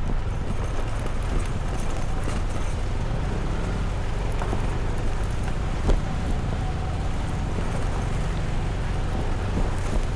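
Scooter or motorcycle engine running steadily while riding an off-road stony track, with wind buffeting the microphone. There is a single sharp knock about six seconds in.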